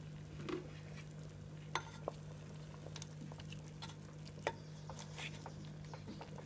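Creamy fish stew simmering at a low boil, with scattered small clicks and soft splashes as pieces of fried tilapia are laid into the pot by hand. A steady low hum runs underneath.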